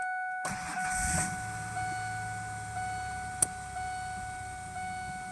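A 1996 Ford Ranger engine is cold-started, catching about half a second in, and settles into a fast idle of about 2,000 rpm. The truck's dashboard warning chime rings steadily over it, swelling about once a second. One sharp click sounds about three and a half seconds in.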